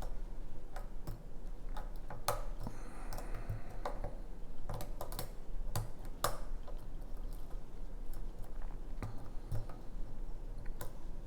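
Irregular light metallic clicks and ticks of a lock pick working the pins of a challenge lock's core under tension, as the picker tries to set the remaining pins.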